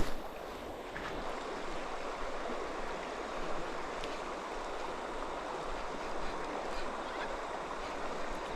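River water rushing steadily over a shallow run.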